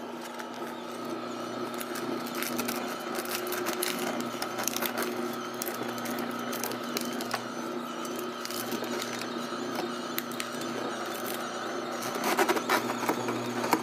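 Tribest Greenstar Elite twin-gear masticating slow juicer running with a steady motor hum, with rapid crackling and snapping as romaine lettuce is crushed between its gears. The crackling gets denser and louder near the end.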